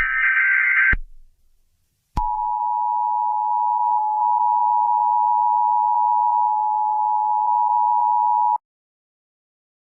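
Emergency Alert System tones: a one-second burst of screechy digital header data, then after a second's pause the steady two-note attention signal, held for about six seconds before cutting off suddenly.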